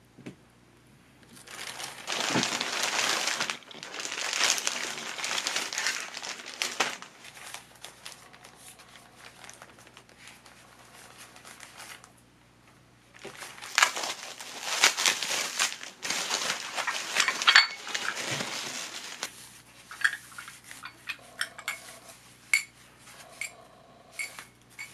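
Plastic shopping bag and paper wrapping crinkled and crumpled by hand as a package is unwrapped, in two loud stretches with softer rustling between. Near the end, light clicks and taps as small ceramic dishes are handled and set down.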